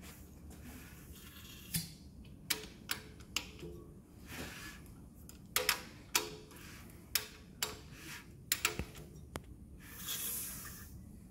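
About a dozen sharp metal clicks and clinks, irregularly spaced, from hand tools and rocker gear as the rocker arms are adjusted on a Holden 304 V8 built into a 355 stroker, with a short hiss about ten seconds in.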